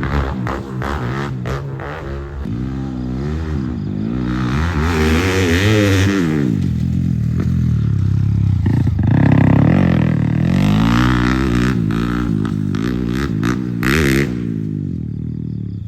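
Motorcycle engine revving hard again and again, its pitch climbing and dropping with each twist of the throttle, with a few sharp clatters near the end.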